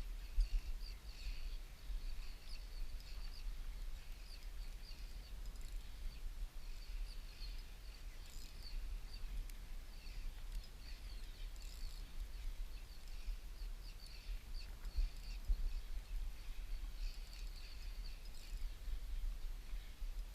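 Outdoor ambience: a steady low rumble with many short, high chirping calls repeating throughout.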